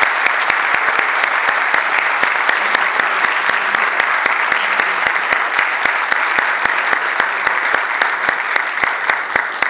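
Audience applauding steadily, with one person's sharp claps standing out close by at an even pace; the applause begins to thin near the end.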